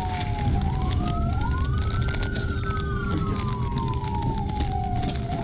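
Police car siren in a slow wail, its pitch rising and falling over a few seconds, with a second wail running just out of step. Heard from inside the pursuing patrol car over a steady rumble of engine and road noise.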